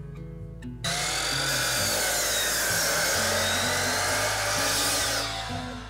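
Sliding miter saw starting about a second in and cutting through a thick walnut board, a hard wood: a loud whine and rasp whose pitch dips as the blade bites and rises again, stopping about half a second before the end. Background music plays underneath.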